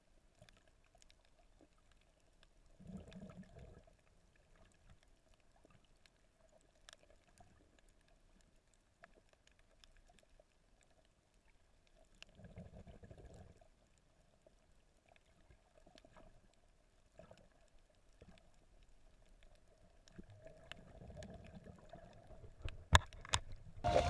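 Muffled underwater sound: scattered faint clicks and three soft, low rushes of water, about eight or nine seconds apart.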